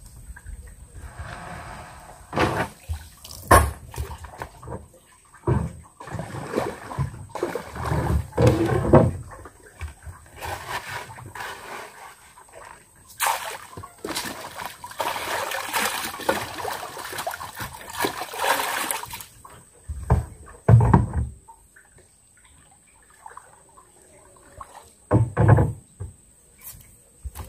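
Water splashing and streaming, with a longer rush of water midway and several irregular knocks and thumps.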